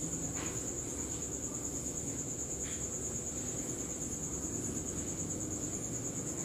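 A steady high-pitched trill, with a few faint scratches of a marker drawing on a whiteboard.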